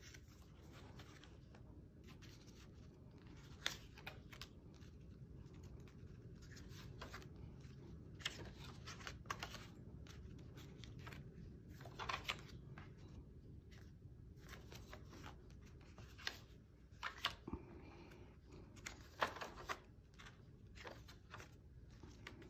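Cardstock pages of a disc-bound paper recipe book being flipped and handled: scattered short paper rustles and flicks over a low steady background hum.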